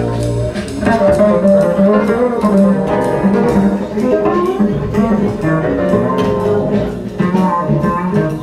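Music with plucked strings played through a high-end stereo system in a demo room: Sound Lab electrostatic panel loudspeakers driven by Wavac 833 tube amplifiers.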